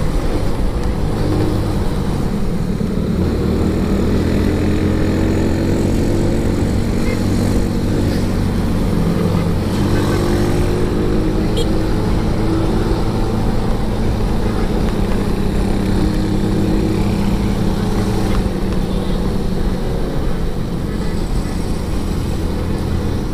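Motorcycle engine running steadily at cruising speed, its pitch rising and falling slightly with the throttle, under a constant rush of wind and road noise.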